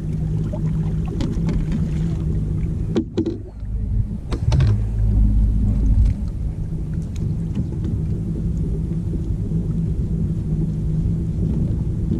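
A boat's motor running steadily with a low hum, with a heavier low rumble for a second or two about four and a half seconds in.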